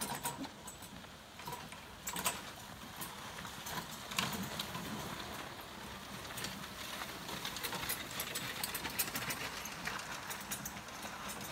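Club Car golf cart driving while it tows a DR power grader through loose dirt: a steady mechanical rattle with scattered sharp clicks and knocks.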